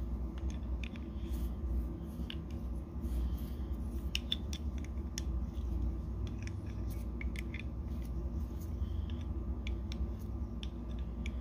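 Light, irregular metallic clicks and ticks from the small metal parts of a Sherwood Maximus regulator second stage being turned and handled in the fingers, over a steady low hum.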